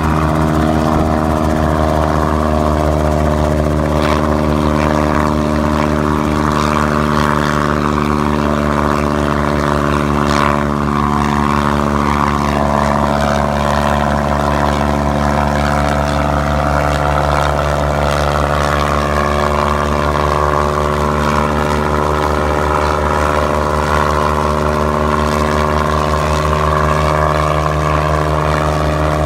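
Kasatka 505 light helicopter's engine and main rotor running steadily as it lifts off and hovers low. The pitch holds constant throughout.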